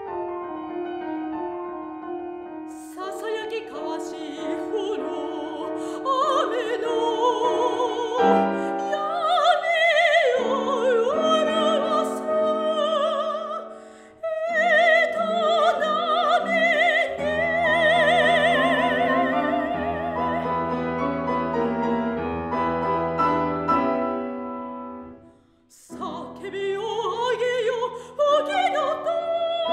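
Soprano singing a classical art song with piano accompaniment. The piano plays alone at first, and the voice, with wide vibrato, comes in about three seconds in. Both break off briefly a few seconds before the end, then resume.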